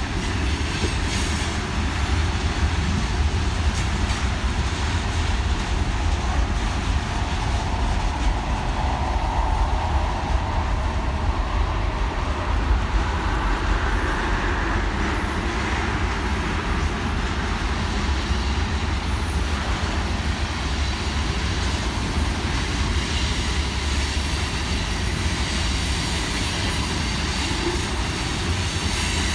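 Freight cars of a mixed manifest train rolling past at a steady pace: a continuous low rumble of steel wheels on rail.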